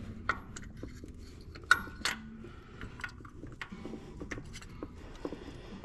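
Metal socket clinking and knocking against engine parts as it is worked onto a newly threaded oil pressure sensor: irregular light clicks and taps, the loudest a little under two seconds in.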